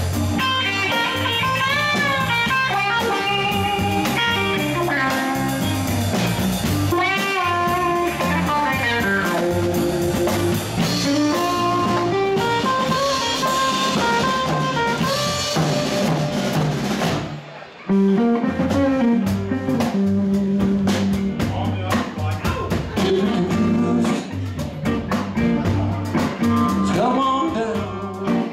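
Live blues band playing: electric guitar lead with bending, sliding notes over bass and drum kit. The band stops for a moment about two-thirds of the way through, then comes back in together.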